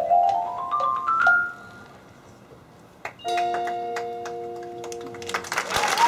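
Marching band front-ensemble mallet percussion (marimba and xylophone) playing a quick rising run of notes that stops about a second in. After a short pause, a chord is struck and held for about two seconds, and applause breaks out near the end.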